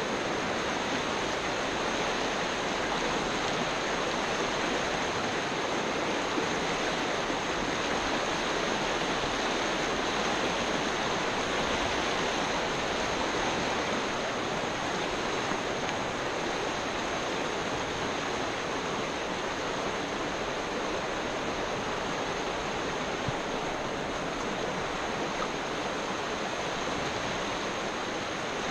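Shallow, fast river water rushing steadily over a riffle and around fallen logs: an even, unbroken rush.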